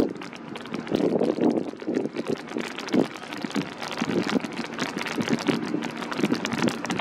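Rain falling, with gusts of wind buffeting the microphone in irregular swells, strongest about a second in and again around three seconds in.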